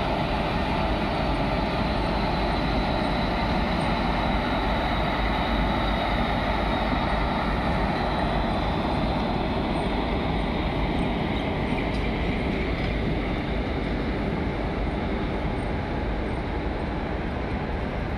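Twin WCAG-1 electric locomotives passing slowly at arrival, with a steady running noise and a faint high whine. About halfway through the whine fades as the automobile-carrier wagons roll by on the rails.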